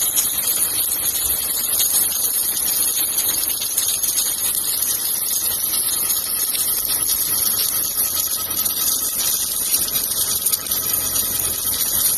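Submerged arc welding run in progress: a steady, even hiss with machine noise underneath and no breaks.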